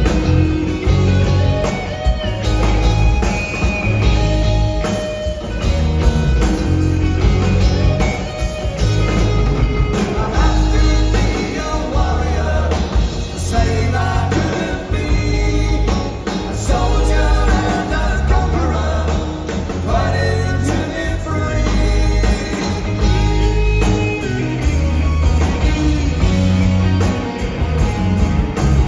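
Live rock band playing: electric guitar and bass guitar over a drum kit, with a male lead vocal singing.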